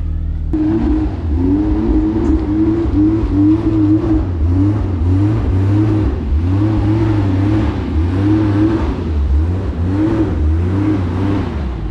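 A car engine running and being revved in short repeated blips, its pitch rising and falling, starting about half a second in.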